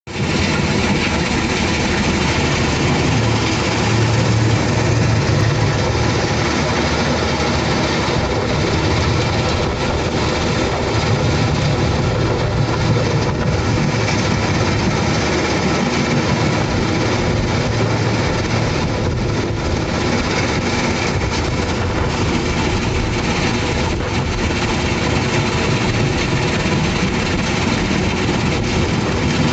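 Alluvial ore washing plant running: a steady, loud mechanical din of heavy machinery, with a diesel excavator and vibrating screens shaking and washing ore under water sprays.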